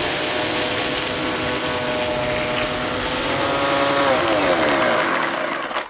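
Chainsaw running at a steady high speed under a loud hiss, its pitch sliding down about four seconds in before cutting off suddenly.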